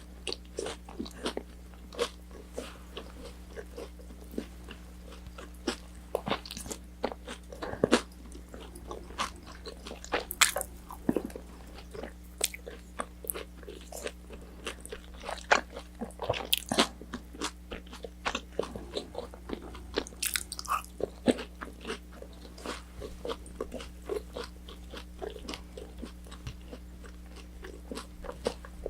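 Close-miked eating of crispy fried orange chicken: irregular crisp crunches and wet chewing clicks, a few bites sharper and louder than the rest, over a faint steady low hum.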